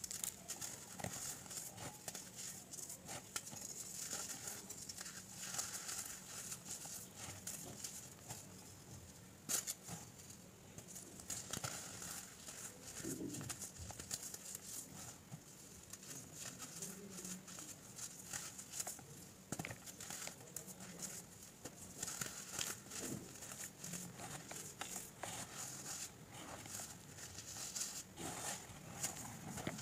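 Pressed baking soda blocks being crumbled and crushed by hand: a steady run of soft crunches and crackles as the chunks break and the powder sifts between the fingers, with one sharper crack about ten seconds in.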